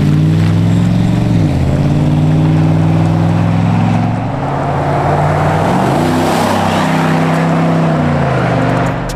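Lifted Chevrolet Silverado pickup's engine and MBRP cat-back exhaust under acceleration. The exhaust note holds a steady pitch, drops about a second and a half in as it shifts up, climbs again around six seconds in and falls off near the end.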